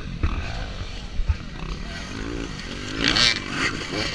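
Enduro dirt bike engine revving, its pitch rising and falling, mixed with spectators' voices and a loud shout about three seconds in.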